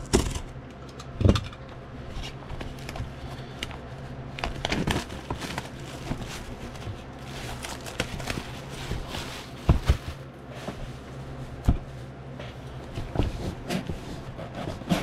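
Plastic shrink-wrap being cut and peeled off a cardboard box, with crinkling and rustling and a few sharp knocks as the box is handled. A steady low hum runs underneath.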